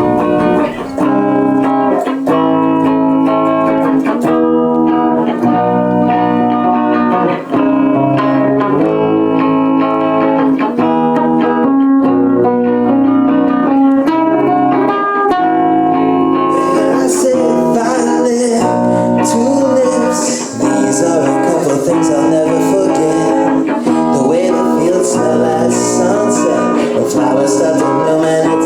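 Background music: a guitar-led instrumental with plucked strings. A brighter high layer, like cymbals, comes in a little past halfway.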